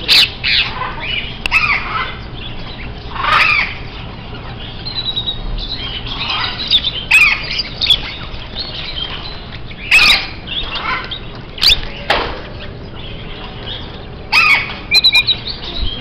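A crowd of caged small birds, finches and lovebirds, chirping steadily. Loud, sharp squawks break through every second or two.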